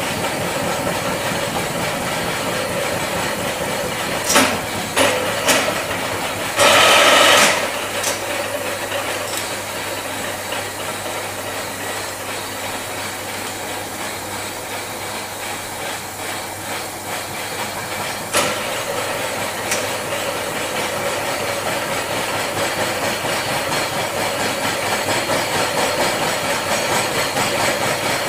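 Vertical milling machine running, its face mill cutting across the top surface of a metal workpiece clamped in a vise: a steady machine drone. A few short sharp bursts of noise come about four to five seconds in, then a louder one lasting about a second, and a single click later on.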